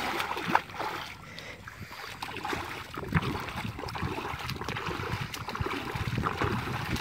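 Hands splashing and sloshing in shallow, muddy water while groping for fish, in irregular bursts, quieter for a second or so near the start and busier again from about three seconds in.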